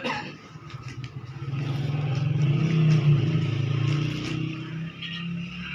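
A motor vehicle's engine running nearby, swelling to its loudest a few seconds in and then fading, like a vehicle passing by.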